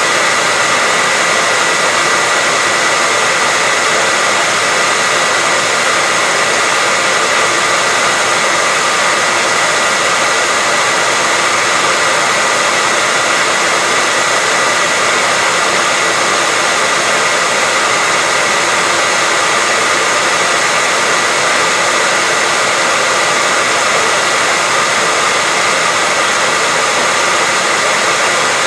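Hair dryer running steadily: a continuous loud rushing of air with a steady high whine from the motor and fan.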